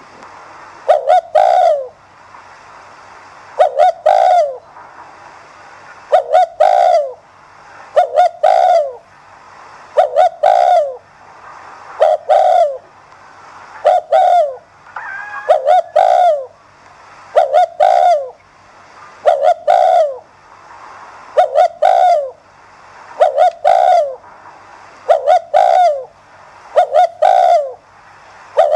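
Spotted dove cooing a rapid, repeated 'gù' call, the kind Vietnamese keepers use to stir other doves into cooing. Each phrase comes about every two seconds: a couple of quick notes run into a longer falling coo.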